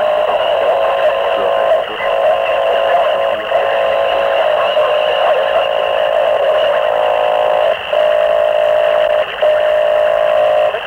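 Harsh noise music from a 1992 cassette demo, made with microphones and homemade electronics. It is a loud, distorted midrange drone of several close tones over a hissing upper band, with almost no bass, broken by a few brief drop-outs.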